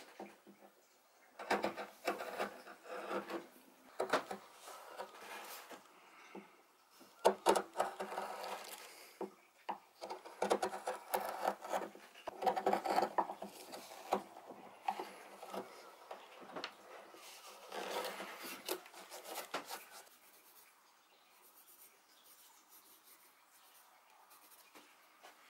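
Hand carving gouge paring shavings out of the bowl of an oak spoon blank: irregular runs of short scraping cuts into the wood, which stop about twenty seconds in.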